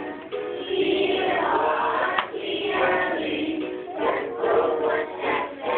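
A group of young children singing a song together, in unison.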